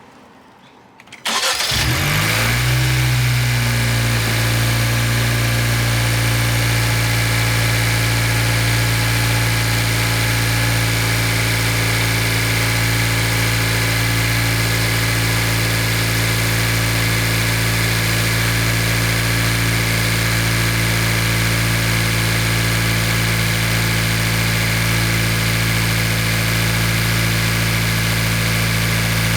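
Honda Civic's 1.5-litre turbocharged four-cylinder engine starting about a second in, flaring up briefly and settling into a steady idle, its first start after a new turbo inlet pipe was fitted.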